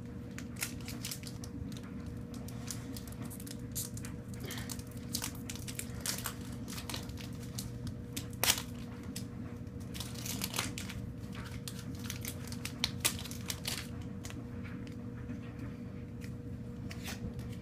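A Pokémon card booster pack being torn open and its wrapper crinkled and handled, with irregular crackles and a few sharper snaps, over a steady low hum.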